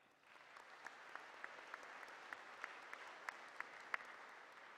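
Audience applauding, with a few single claps standing out above the rest; it starts just after the beginning and begins to die away near the end.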